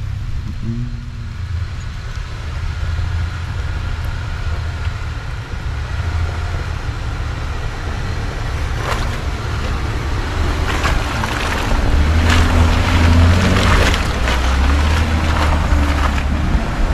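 Jeep Gladiator pickup's engine running as it drives up a snowy dirt track and passes close, with tyre noise through snow and slush. It grows louder over the last few seconds as the truck draws near.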